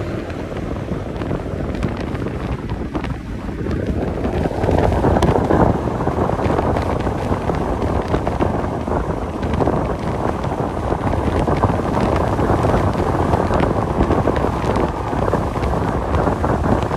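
Steady road and wind noise from a truck cab moving at highway speed, getting louder about four seconds in.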